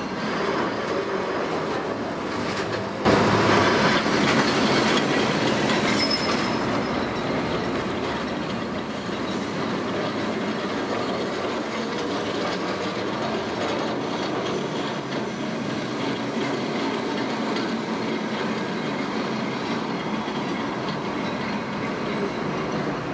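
Vintage 1930s Lisbon tramcar running along the street: steady noise of its wheels on the rails and the car body, growing louder about three seconds in.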